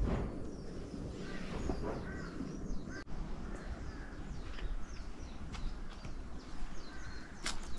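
Wild birds calling outdoors: many short chirps and calls scattered throughout, over a low steady rumble. There is a brief sharp noise near the end.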